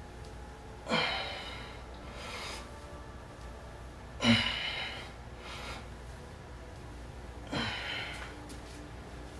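A man breathing hard while exercising: three sharp, forceful breaths out, one with each lunge rep and about three and a half seconds apart, each followed by a fainter breath in.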